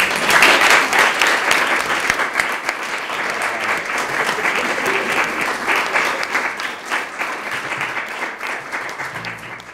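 Small audience applauding, starting at once and loudest at first, then slowly fading toward the end.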